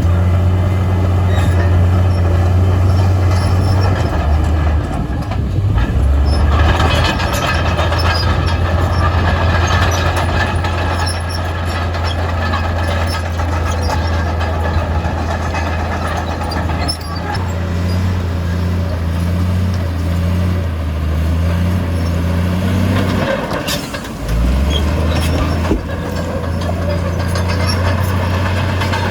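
Diesel engine of heavy earthmoving machinery running steadily under load. There is a louder, noisier spell of rattling about seven to eleven seconds in, and the engine note shifts a little past halfway and dips briefly near the end.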